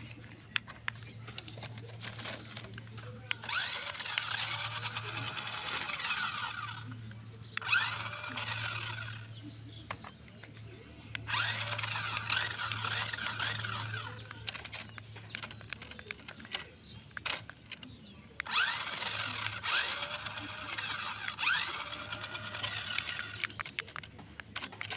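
Electric drive motors and gears of a toy RC stunt car whining as its wheels spin freely in the air, driven in several bursts of a few seconds each from the remote.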